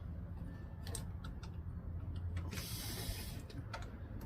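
Small metal clicks and handling noises as a carburetor's mounting bolts and nuts are worked by hand on a small snowblower engine, with a short hissing rustle about two and a half seconds in, over a low steady hum.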